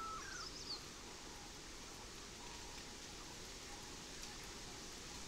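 Faint steady outdoor background, with a few quick bird chirps in the first second.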